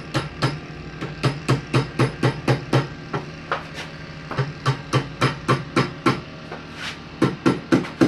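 Soft-faced mallet tapping a metal spoon around a bending jig held in a vise, setting the curve for a spoon bracelet. The taps are quick and light, about three to four a second, in runs with two short pauses, over a steady low hum.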